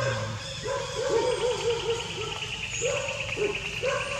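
Macaque calls: a quick run of about five short rising-and-falling cries about a second in, then single cries every half second or so. A steady, evenly pulsed high insect trill runs beneath them from about a second in.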